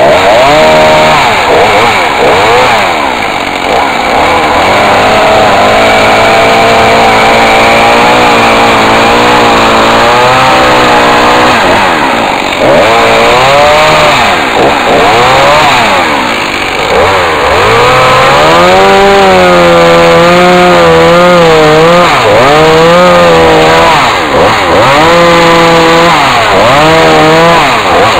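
A two-stroke chainsaw runs at high revs as it cuts into a squared timber beam. Its engine pitch dips under load and rises again many times, most often in the second half.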